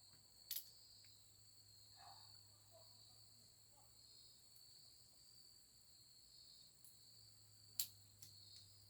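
Faint, steady chirring of crickets, with two sharp clicks about half a second in and near the end as the clutch cable is worked into the lever.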